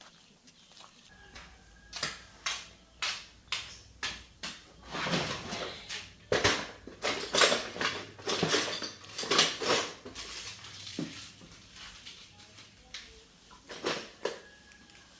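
Irregular knocks, clinks and scraping of hard objects being handled. A few sharp separate clicks come first, the clatter grows dense in the middle, then thins out to scattered knocks.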